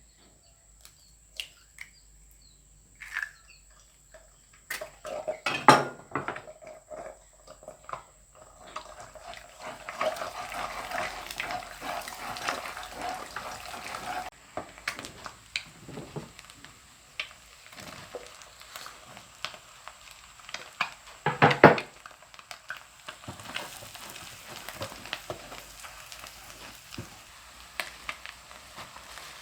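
Stir-frying in a pan, most likely the bitter mustard greens: a few scattered clicks and knocks of pan and utensils, then steady sizzling from about nine seconds in. Utensil clatter runs through the sizzling, with two loud knocks, one near the start of the cooking sounds and one about two-thirds through.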